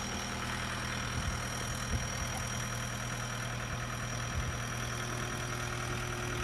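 Skid steer engine running steadily at a low, even speed, with a few faint knocks.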